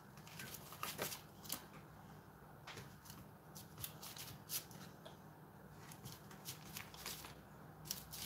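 Metal bench scraper cutting a hot sheet of toffee cookie slab on a baking tray: scattered faint, crisp scrapes and clicks as the blade is pressed down through the crisping bake, stroke after stroke.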